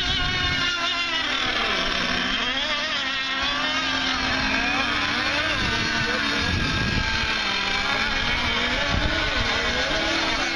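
Several 1/8-scale radio-controlled racing boats running flat out on the water. Their high-revving motors whine together, each pitch rising and falling as the boats pass and turn.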